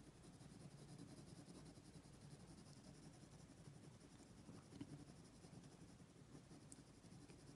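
Faint scratching of a hard 4H graphite lead on drawing paper, shading in quick small strokes.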